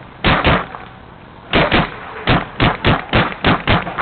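Paintball marker firing: two quick shots, a pause, two more, then a faster string of about five shots a second.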